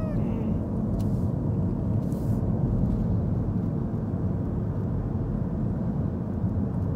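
Steady low rumble like a vehicle's running noise, with a faint click about a second in and a brief high hiss around two seconds.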